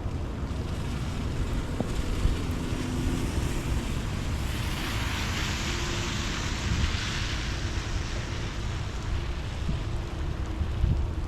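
Rain falling, with a low rumble of wind buffeting the microphone; the hiss of the rain swells for a few seconds in the middle.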